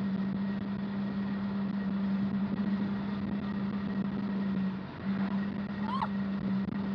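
Glass root beer bottle held out of a moving car's window, the rushing air across its mouth making it sing one steady low note. The note breaks off briefly about five seconds in, and wind and road noise run under it.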